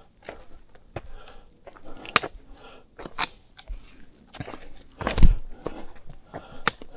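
A hiker's footsteps on a wet, rocky and muddy trail: uneven, separate steps about once a second, with a louder heavy thump about five seconds in.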